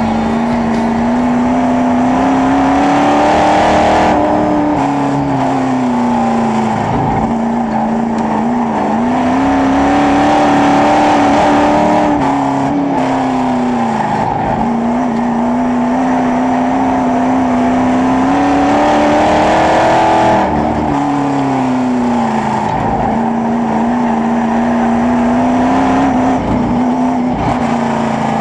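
In-car sound of a dirt-track Sportsman Late Model race car at speed. The engine revs climb on the straights and drop as the driver lifts for the turns, a rise-and-fall that repeats about every seven to eight seconds.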